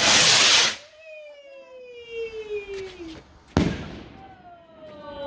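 Firework rocket going up with a loud hiss, then a whistle that falls in pitch, a sharp bang about three and a half seconds in, and a second falling whistle.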